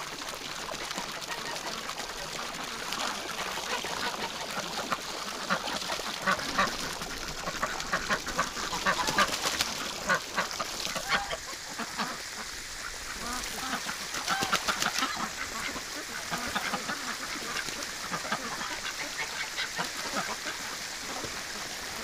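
A flock of domestic ducks quacking, with geese honking among them, in many short overlapping calls.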